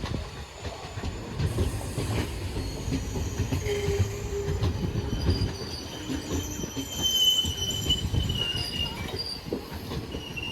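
Train rolling past, its wheels rumbling and clattering on the rails, with high-pitched wheel squeal from about six to nine seconds in.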